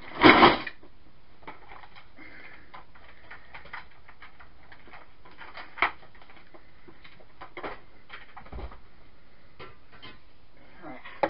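A loud handling thump as the camera is set down, then scattered light clicks and knocks of things being moved about off-camera, with a low thud about eight and a half seconds in.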